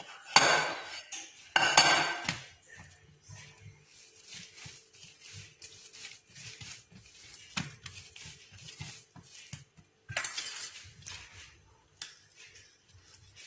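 Kitchen clatter as dough is handled in a bowl: a couple of loud scraping rustles at the start and another about ten seconds in, with many small knocks and clinks of a bowl and utensils between them.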